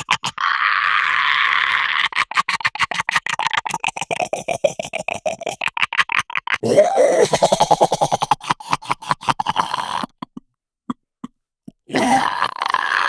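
Gremlin creature sound effect: rapid gurgling chatter with grunts and groans. About ten seconds in it falls nearly silent for two seconds, leaving a few single clicks, then the chatter starts again.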